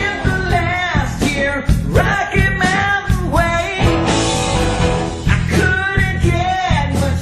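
Rock band playing a song: a steady drum beat under electric guitar, with a bending melody line carried on top.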